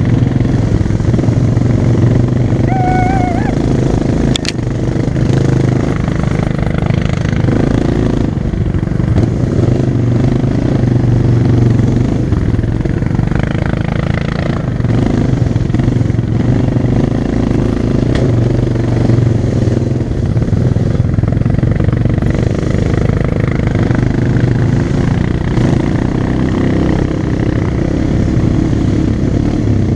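ATV engine running steadily at trail speed, heard from the rider's helmet, its pitch swelling and easing slightly as the throttle changes. A short high chirp sounds about three seconds in, followed by a sharp click.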